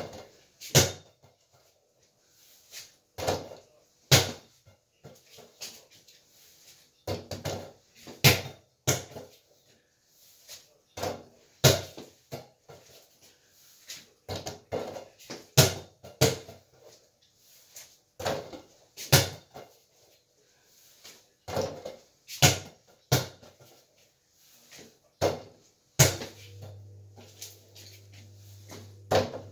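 Mini basketball thrown at a small hoop: repeated sharp thuds as it strikes the backboard and rim and bounces, at irregular intervals of a second or two, with smaller knocks in between. A low steady hum starts near the end.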